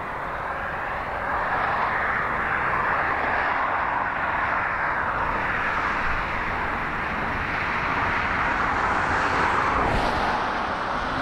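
A Panavia Tornado GR4's twin RB199 turbofan jet engines running at high power on the take-off roll. The roar grows louder over the first couple of seconds and then holds steady.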